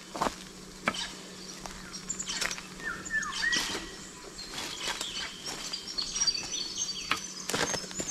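Footsteps crunching and crackling irregularly on dry leaf litter and loose creek stones, with birds chirping: a short falling call about three seconds in and high chirps through the second half.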